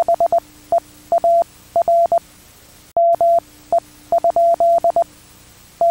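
Electronic alert beep tone of an emergency broadcast, a single steady pitch keyed on and off in irregular short and long beeps like Morse code, over a faint low hum.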